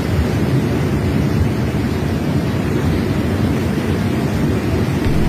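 Loud, steady rushing of a muddy river in flood.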